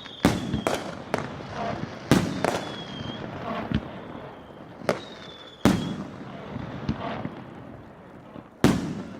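Consumer firework battery (a multi-shot cake) firing: sharp bangs every second or so, some in quick pairs, each followed by a short crackle, with thin whistling tones behind some of the shots.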